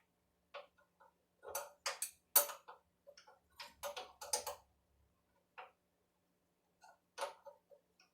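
Irregular sharp metal clicks and clinks of a wrench being worked onto a router's collet nut, which it doesn't quite fit; the clicks come in small clusters, the loudest about two seconds in.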